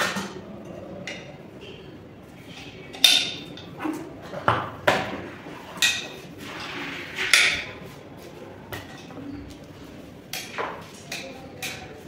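Metal parts of a stainless steel lever door handle set, handles and backplates, being handled and fitted together. They knock and clink irregularly, about a dozen times, with the loudest knock about three seconds in.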